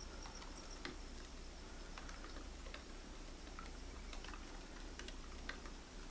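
Faint, scattered clicks and ticks at uneven intervals over a low hum. A rapid, high-pitched insect chirping stops about a second in.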